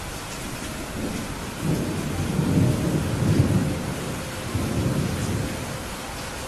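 Steady rain with a roll of thunder that swells in about a second and a half in, rumbles deeply for about four seconds, then dies away under the rain.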